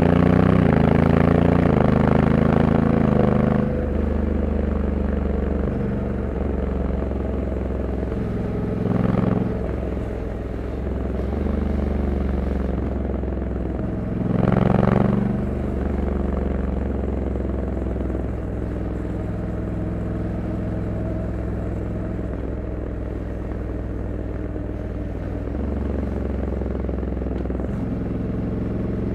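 2021 Honda Africa Twin 1100 DCT's parallel-twin engine on the move through its stock exhaust: it is louder at first and falls in pitch over the first few seconds, then runs steadily. A rushing noise swells briefly twice along the way.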